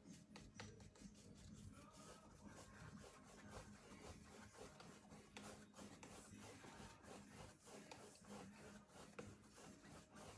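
Paintbrush scrubbing back and forth over the painting to blend the colours: faint, quick, irregular brushing strokes.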